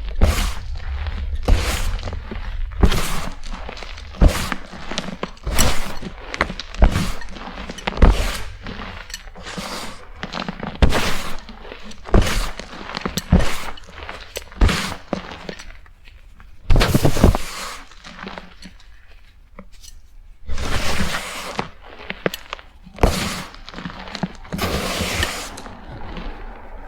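Blocks of BSN gym chalk being crushed and crumbled, with repeated crisp crunches and crackles in quick bunches. A short lull comes about two-thirds of the way through, followed by longer grainy crumbling.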